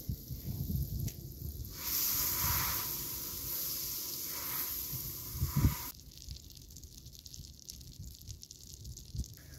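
Food sizzling hard on the heat for about four seconds, then cutting off suddenly, with low knocks and thuds just before it.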